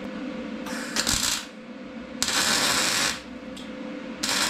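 MIG welder making three short tack welds on steel, each a crackling burst of about a second, with the shielding gas not yet turned on.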